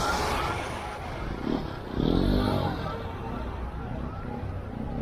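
Emergency-vehicle siren wailing in quick rise-and-fall cycles, about two a second, over light road traffic.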